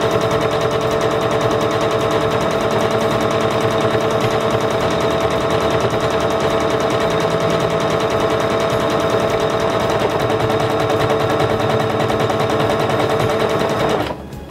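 Singer Confidence 7640 sewing machine stitching a one-step bar tack buttonhole at a steady speed: a fast, even rattle of needle strokes over a steady motor whine. It cuts off suddenly near the end as the machine finishes the buttonhole and stops on its own.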